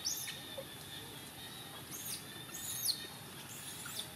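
A bird's high chirps, each falling quickly in pitch, four times over a few seconds.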